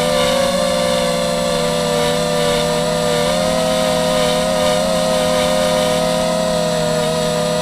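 Mini FPV quadcopter's electric motors and propellers whining steadily in flight, several close pitches wavering slightly as the throttle shifts.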